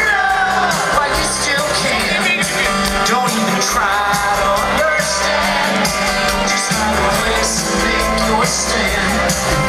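Live country-rock band playing over a concert PA: guitars and drums with a sung lead vocal, recorded from within the audience.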